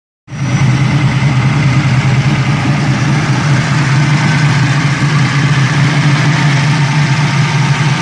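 Chevrolet Camaro Z28's V8 engine idling steadily with the hood open, an even low rumble.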